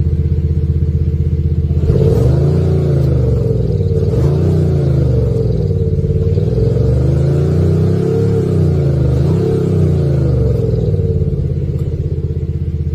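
Mercedes-AMG E450 Coupe engine and exhaust idling, then revved several times from about two seconds in, each rev rising and falling back, before settling to a steady idle near the end.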